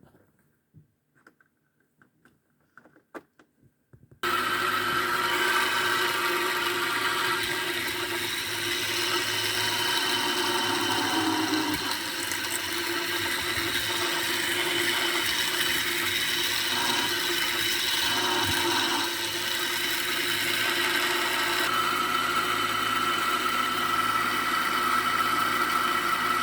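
A few faint clicks, then about four seconds in the small motor of a homemade PCB mini drill press switches on abruptly and runs at high speed with a steady whine.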